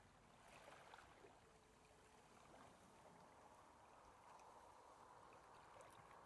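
Near silence: faint outdoor background hiss.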